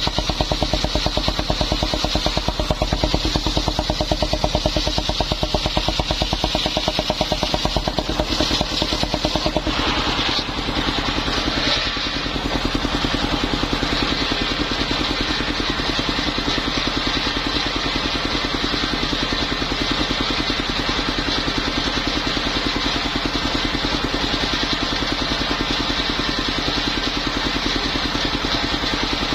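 Engine of a mobile circular-saw sawmill running steadily with a rapid, even pulse; its sound changes about ten seconds in.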